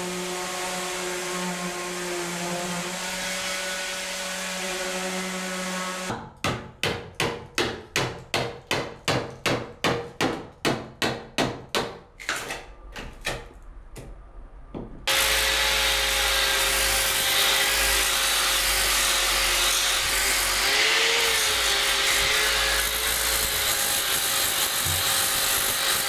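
A power tool running steadily with a hum, then a hammer striking a chisel about two and a half times a second, chipping flaking paint off the inside of a boat hull, tapering to lighter taps. About fifteen seconds in, a louder hand-held power tool with a vacuum dust hose starts, grinding or sanding the hull overhead, and runs steadily with a thin whine.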